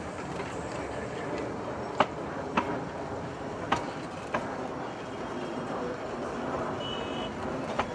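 Darjeeling Himalayan Railway narrow-gauge passenger coaches rolling past at close range: a steady rolling rumble broken by a few sharp clicks from the wheels.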